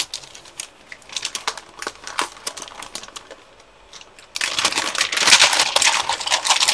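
Clear plastic bag crinkling as hands handle it and pull it open. It gives scattered faint crackles at first, then turns to loud, continuous crinkling from about halfway in.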